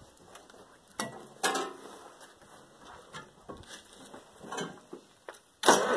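Scattered metal clunks and clicks from the cab of an Allis-Chalmers 940 wheel loader as a person climbs in and works the controls, followed near the end by a sudden loud rush of noise.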